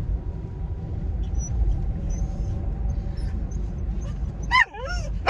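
Steady low road and engine rumble inside a moving car. Near the end a dog gives two short, high whining cries that bend up and down in pitch.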